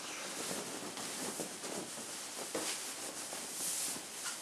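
Fabric of a T-shirt rustling as it is pulled on over the head and tugged straight. It is a continuous soft rustle that swells slightly near the end.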